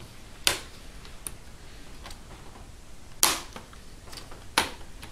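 Plastic screen bezel of a Gateway NV78 laptop being pried off the LCD panel by hand, its clips snapping loose. There are three loud, sharp snaps: about half a second in, a little past three seconds, and near the end. Fainter clicks fall between them.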